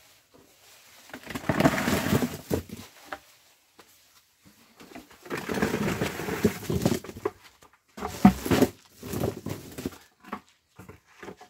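Cucumbers pouring out of a plastic bucket into a plastic-lined cardboard box, a long tumbling rattle twice, then a shorter clatter of cucumbers and bucket near the end.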